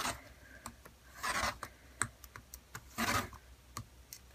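Rotary cutter slicing through folded cotton fabric strips along the slots of a Stripology quilting ruler onto a cutting mat: three cuts about a second and a half apart, each a short scratchy sweep, with small clicks between them.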